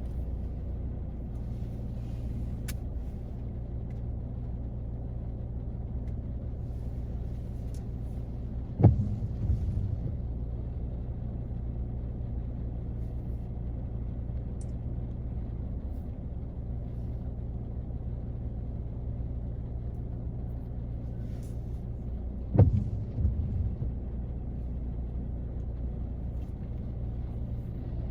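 Rain on a car heard from inside the cabin as a steady low rumble, with two sharp knocks, one about nine seconds in and another about twenty-three seconds in, each followed by a few softer ones.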